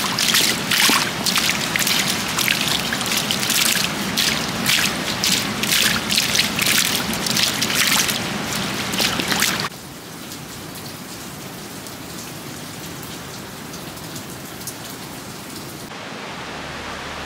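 Heavy rain with rainwater running and splashing, full of sharp drop spatters. About two-thirds of the way through it cuts off suddenly to a quieter, steady hiss.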